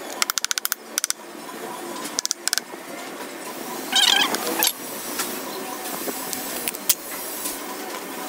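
Metal knocks and clicks as the cylinder block of a 110cc motorcycle engine is rocked and tapped loose from the crankcase with a wooden-handled hammer: a quick rattle of clicks near the start, then a few separate taps. About four seconds in there is a short, wavering, high-pitched squeal.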